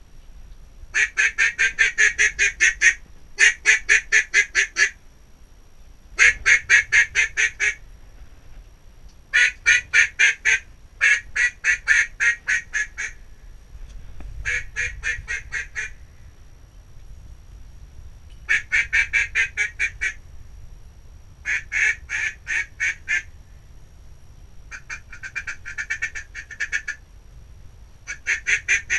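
Duck call blown in about ten runs of loud, evenly spaced mallard-hen quacks, about five quacks a second, each run lasting a couple of seconds with short pauses between.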